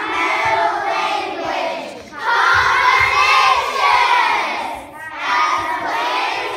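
Many children's voices calling out together in unison, in three loud phrases broken by short pauses about two and five seconds in.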